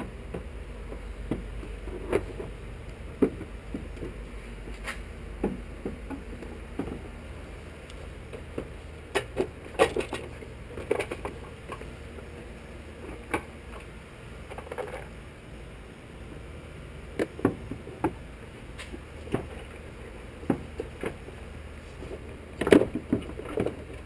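Irregular clicks, taps and knocks of hand work with parts and tools, some coming in quick runs, over a low steady hum. The loudest knocks come about ten seconds in and near the end.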